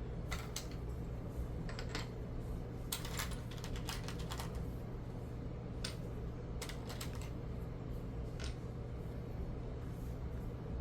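Plastic Lego bricks clicking and tapping irregularly as they are handled and pressed together, over a steady low hum.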